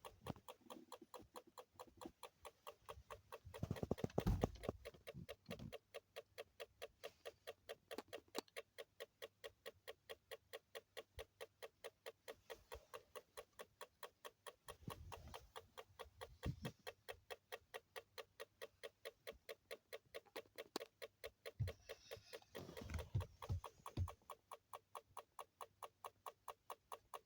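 Steady, even ticking from a Toyota Alphard, about three to four ticks a second, with a few louder thumps and rustles around it.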